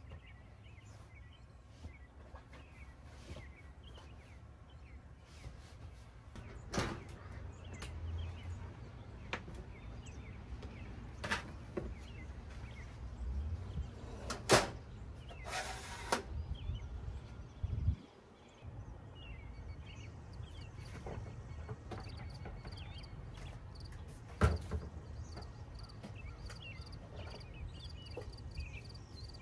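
Metal camper entry door being worked: the latch clicks and the door swings open and shut, giving a handful of sharp clicks and knocks, with a short rattling scrape about halfway through and a thump a little later. A low steady rumble runs underneath.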